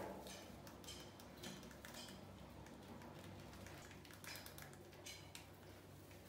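Near silence: a low steady hum with faint, scattered light ticks and scratches.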